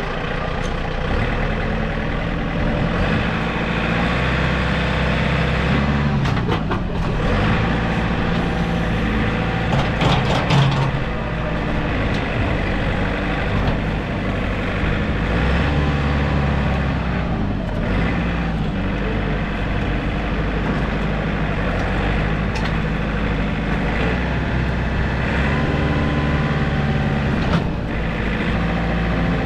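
A large engine running steadily and loudly throughout, its pitch rising and falling a few times as the load changes.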